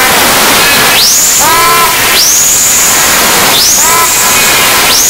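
Loud, steady hiss and static from a faulty recording, with a rising whistle-like sweep that repeats four times, about every second and a half.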